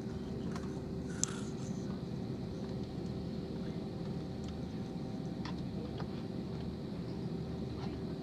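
Steady cabin noise of a jet airliner taxiing, heard from inside the cabin: a low engine and air hum with a few constant tones. A single sharp click about a second in.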